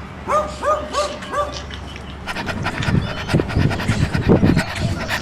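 A dog and a puppy play-fighting: three quick high yips, then from about two seconds in a busy run of grunts and panting.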